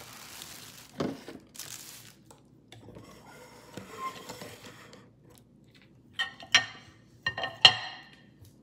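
Handling rustle and a thump as a phone on its stand is adjusted, then several sharp ringing clinks of dishes, like a ceramic plate being knocked and set down, about six to eight seconds in.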